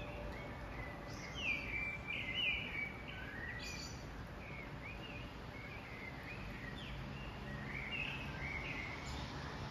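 Birds chirping in short, repeated notes, busiest a second or two in and again near the end, over a steady low background hum of the city.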